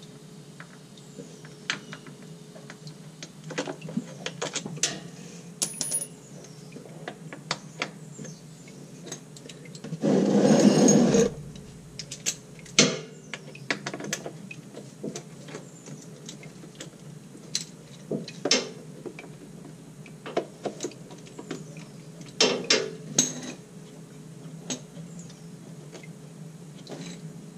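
Scattered small metallic clicks and clinks as the bolts on a ZF 8-speed transmission's oil pan are loosened and backed out by hand, to drop the pan. About ten seconds in, one louder rustling scrape lasts a second or so.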